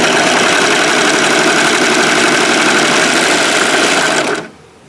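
Overlock sewing machine (serger) running at a steady high speed, overcasting the edge of a seam in black fabric; it stops suddenly about four and a half seconds in.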